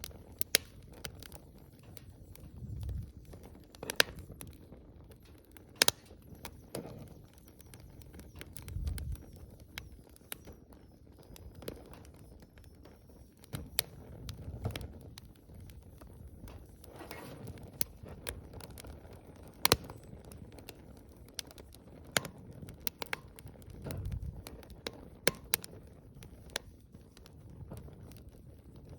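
Wood bonfire crackling, with irregular sharp pops and snaps over a soft hiss and now and then a soft low rumble lasting about a second.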